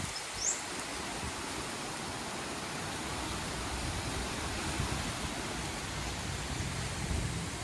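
Strong wind blowing: a steady rushing hiss, with uneven low rumbling where the gusts hit the microphone. A brief, rising high chirp about half a second in.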